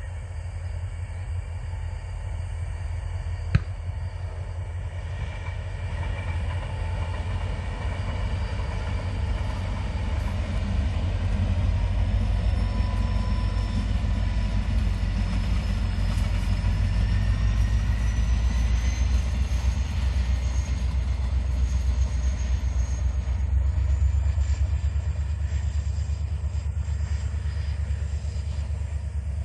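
Diesel-electric locomotive and a train of oil tank cars rolling past: a steady low rumble that builds as the locomotive comes nearest and stays strong, with thin high whines drifting slowly up in pitch. There is one sharp click about three and a half seconds in.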